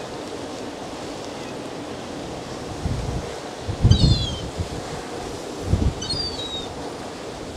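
Wind buffeting the microphone in low gusts about three, four and six seconds in, over a steady rush of wind and sea. Gulls give two short, falling calls, about four and six seconds in.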